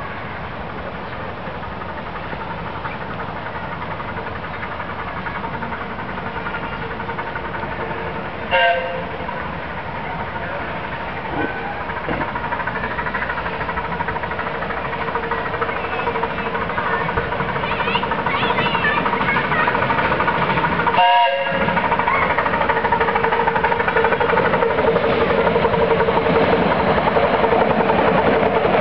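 Miniature railway locomotive approaching and running past, its steady running sound growing louder toward the end. Two short higher-pitched sounds stand out, about 8 seconds and 21 seconds in.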